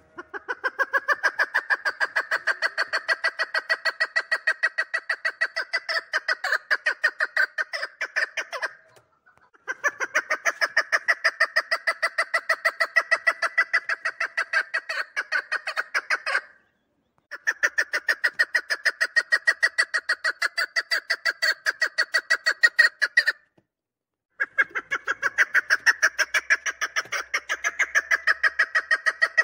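Chukar partridge calling: long bouts of rapid, evenly repeated chuk notes, four runs of several seconds each broken by brief pauses of about a second.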